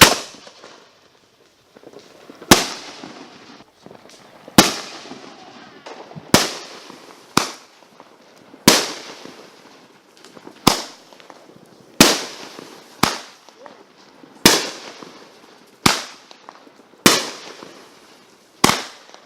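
Consumer fireworks going off in a steady sequence: about thirteen sharp bangs spaced roughly a second or two apart, each fading away over a fraction of a second.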